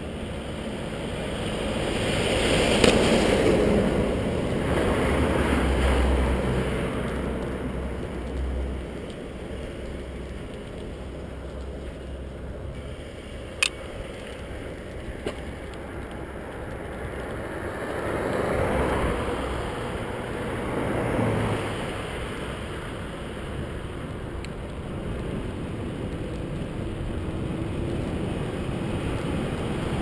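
Wind rushing over the microphone and road rumble from a mountain bike ridden along a paved road shoulder. It swells louder a few seconds in and again about two-thirds of the way through, with one sharp click near the middle.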